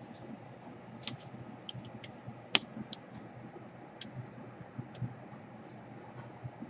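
Scattered light clicks and ticks of a small hand tool picking heat shrink off the solder connections on the back of a laptop DC power jack, with one sharper click about two and a half seconds in.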